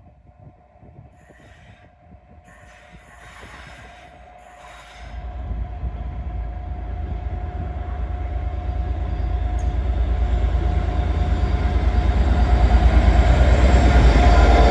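A train approaching: a heavy low rumble sets in about five seconds in and grows steadily louder, with a steady high whine from the wheels running through it.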